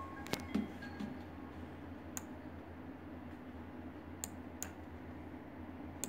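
About six sharp clicks at irregular intervals over a steady low hum. The loudest two come just after the start, the second with a short low thump.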